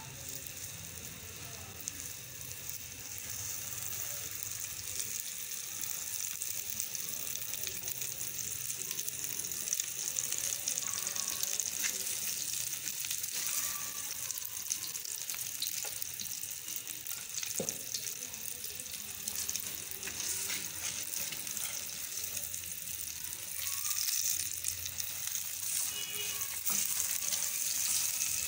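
Ghee sizzling under a paratha frying on a flat griddle (tawa), a steady crackling hiss that grows a little louder a few seconds in. A spatula presses and spreads the bread now and then.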